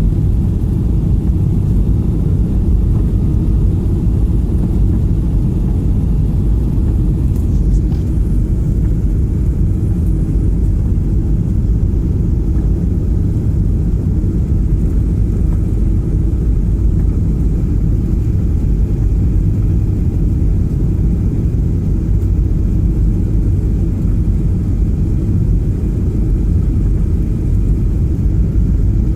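Steady low rumble of an airliner in flight, heard inside the passenger cabin: engine and airflow noise.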